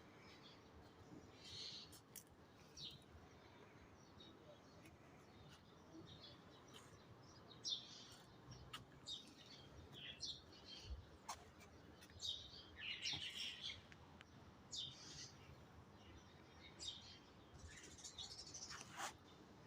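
Small birds chirping and calling in short, scattered high-pitched notes, several overlapping, busiest in the middle, with a few sharp clicks.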